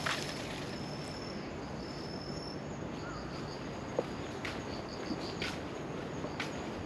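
Insects in the roadside undergrowth singing in high, steady trills, which later break into short pulsed chirps. The light scuffs of footsteps on the paved path are heard now and then.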